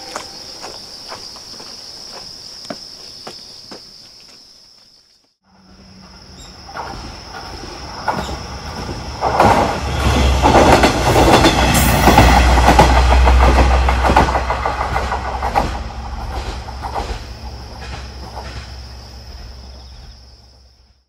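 Footsteps for the first few seconds, then a single-car JR West KiHa 120 diesel railcar passing on the line. It approaches with engine rumble and wheels clacking over the rail joints, is loudest about halfway, and fades away. Insects keep up a steady high trill throughout.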